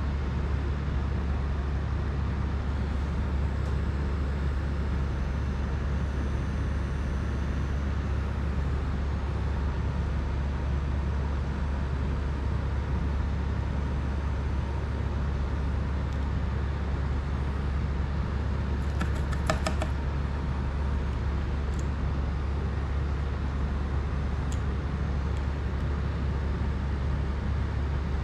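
A steady low rumbling hum, with a brief cluster of light clicks about two-thirds of the way through.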